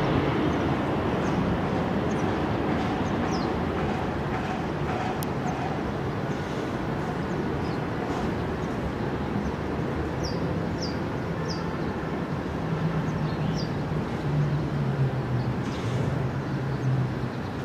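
Distant airport noise: a steady rumble and low hum of jet aircraft taxiing, with a few short high bird chirps about ten to fourteen seconds in.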